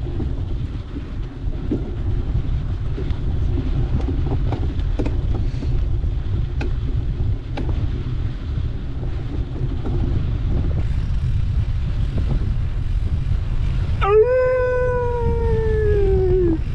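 Wind buffeting the microphone of a moving bike rider, with a few faint clicks. Near the end comes one long, high, pitched sound that rises briefly and then slowly falls in pitch for nearly three seconds before stopping.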